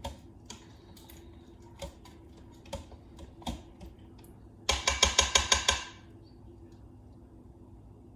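A spoon knocking against the Instant Pot's stainless steel inner pot as the soup is stirred: a few separate light clinks, then about five seconds in a quick run of about eight loud clinks lasting about a second.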